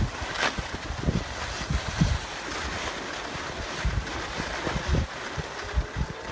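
Wind buffeting a phone microphone in uneven low gusts while skiing downhill, over a steady hiss of skis sliding on snow.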